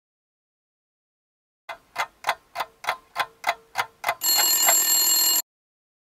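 Clock-ticking sound effect, about three sharp ticks a second, going straight into an alarm clock ringing for about a second before cutting off suddenly, marking time passing.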